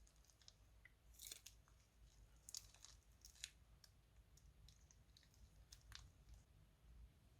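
Faint, scattered crackles and clicks from crunchy slime materials being handled, with a few sharper ones spread through.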